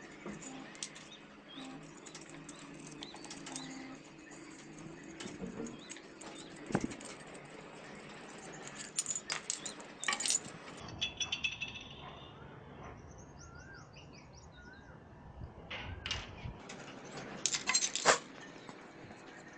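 Small metal parts of an electric iron being handled on a concrete ledge: light clicks and clinks of a sheet-metal element cover, washers and nuts, with louder bursts of clattering about halfway through and again near the end.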